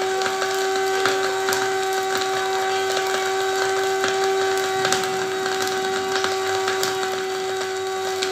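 Small electric grinder running steadily at one pitch, grinding dried orange peel, with scattered ticks of the peel pieces rattling against the blade and bowl as they break down into powder.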